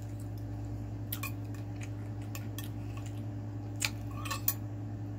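Metal fork clicking and scraping against a ceramic plate, a scattered handful of short sharp clicks over a steady low hum.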